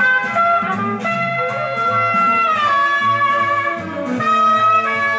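Jazz with brass horns and a bass line, played back from tape on a 1961 Akai M-5 tube reel-to-reel recorder during its final playback test after restoration.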